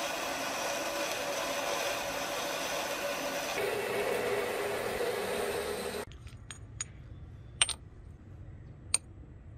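Metal lathe running with a twist drill boring into the end of a spinning rusty metal bar: a steady mechanical whine and rasp whose tone shifts about halfway through. It stops suddenly about six seconds in, followed by a few light clicks and two sharp metallic taps.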